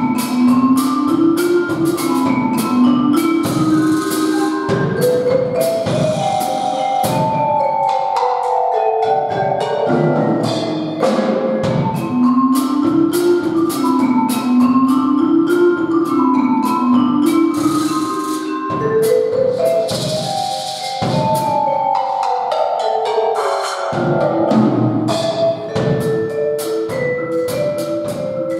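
Live instrumental percussion music: a drum kit keeping time under a melody of mallet-percussion and keyboard notes, the phrase repeating about every twelve seconds.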